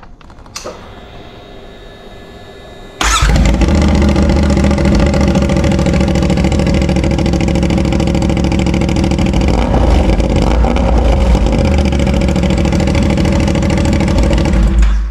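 CFMOTO 450SS parallel-twin engine starting about three seconds in and running steadily through a cheap aftermarket slip-on exhaust, until it stops abruptly near the end.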